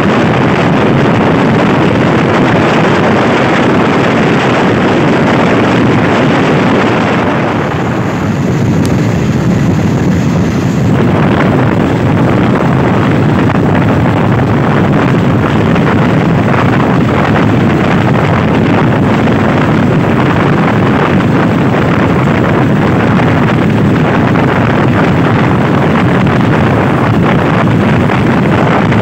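Passenger train running along the track, heard from an open carriage window: a loud, steady rumble of wheels on rails mixed with wind on the microphone. It eases slightly for a few seconds about eight seconds in.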